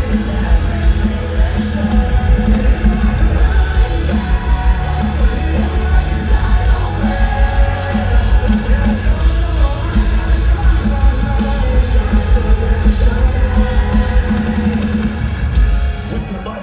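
Live metal band playing at full volume: heavy drums and distorted guitars under sung and yelled vocals, with the music dropping away sharply about a second before the end.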